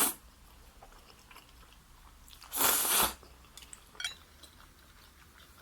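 Close-miked eating of fried food: one loud bite about two and a half seconds in, then quiet chewing with a few small clicks.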